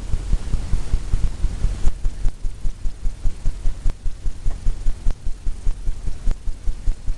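A paint brush tapping repeatedly on a stretched canvas, a steady run of dull thumps at about four to five a second.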